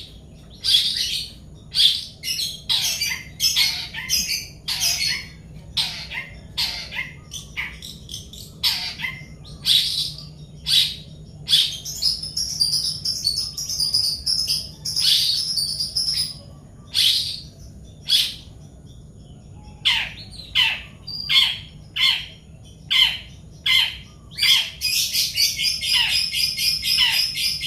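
Small birds chirping: a run of short, sharp downward-sweeping chirps, a few each second, broken by bursts of rapid, dense twittering in the middle and again near the end.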